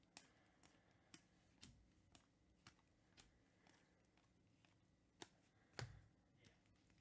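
Faint clicks of trading cards being flipped through and handled, about two a second, with one louder soft thump shortly before the end.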